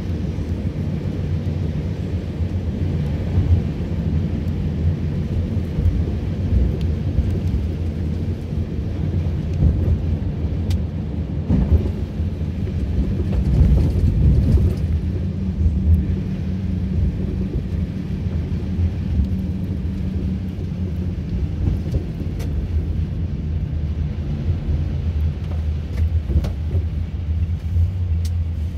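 Steady low rumble of a car driving on a wet road, heard from inside the cabin: engine and tyre noise, with a few faint clicks.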